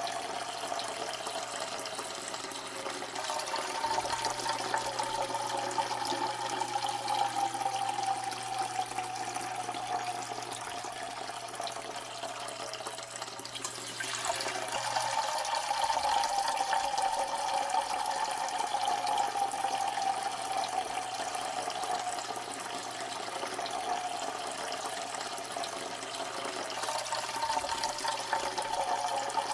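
A steady stream of liquid splashing into water, running without pause. Its pitch sinks slowly, and about halfway through there is a sudden splice where the pitch jumps back up and the stream starts over.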